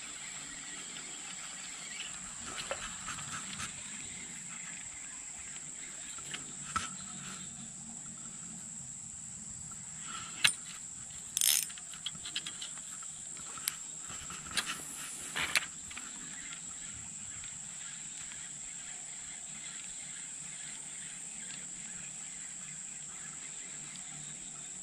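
Insects buzzing in one steady, high-pitched drone, with a few short clicks and knocks about halfway through.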